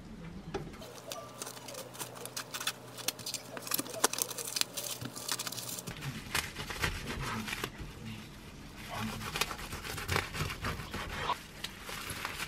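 Plastic cling film crinkling and rustling around a toasted sandwich, then, from about halfway, a knife sawing through the film-wrapped sandwich with scraping, crackling strokes.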